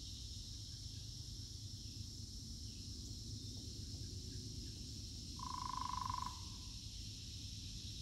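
Steady high-pitched chorus of insects, with a low rumble under it. A little past halfway a single animal call sounds, a pitched note lasting just under a second.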